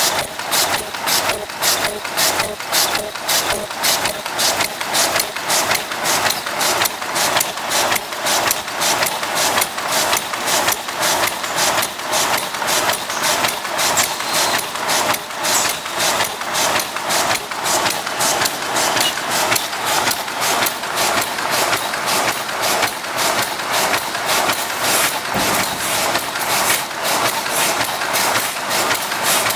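Automatic paper cup forming machines running, with a fast, even rhythm of mechanical clacks over a steady machine hum.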